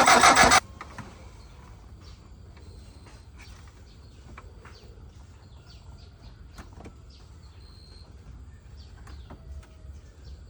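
Pickup truck engine running loudly, cut off abruptly about half a second in. A quiet background follows, with scattered short bird chirps and small clicks.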